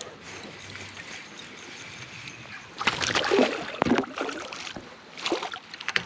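Water splashing and sloshing at a kayak as a hooked smallmouth bass is brought in. About three seconds in there is a loud burst of irregular splashing, and more comes near the end.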